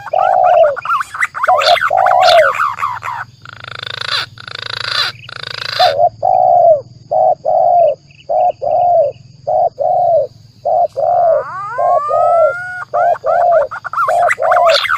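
Bird-lure recording mixing spotted dove (tekukur) coos with green pigeon (punai) calls: rising whistled glides at the start and again near the end, and runs of short low coo notes at about two a second. Around the middle there are a couple of seconds of loud rushing noise.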